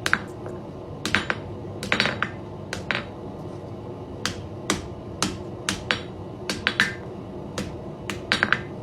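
Blacksmith's hammer tapping on steel at the anvil, folding over the ears of a forged bulldog hook: light, irregular strikes, roughly two a second.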